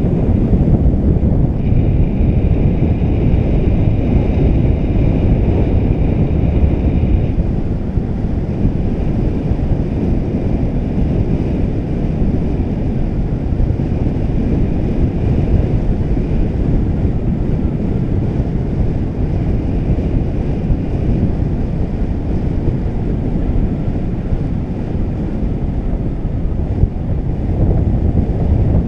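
Wind rushing over a GoPro's microphone as a paraglider flies through the air: a steady low rumble.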